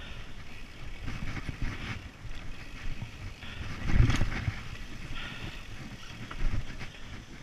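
Mountain bike riding fast down dirt singletrack: a rumble of tyres on dirt and wind on the microphone, with rattling over the rough ground and a loud jolt from a bump about four seconds in, a smaller one later.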